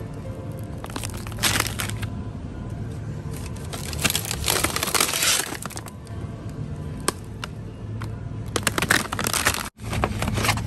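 Plastic food packaging crinkling in several bursts as packs are picked up and handled, over background music and a steady low hum.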